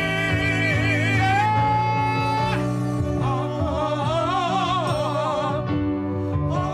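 Song with a singer holding long notes with vibrato over steady instrumental backing; one note is held level for about a second.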